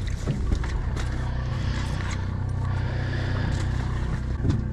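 Boat engine running steadily with a low, even hum, with a few faint clicks over it.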